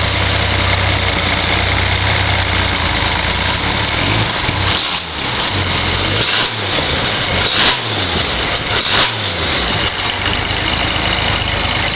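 Freshly rebuilt Hudson 308 Twin H-Power flathead straight-six running smoothly on an engine test stand through a heat cycle.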